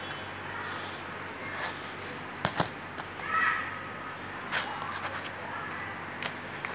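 Small stones being handled and set down on a paper-covered surface: a few sharp knocks, the loudest about two and a half seconds in, over a steady background hiss.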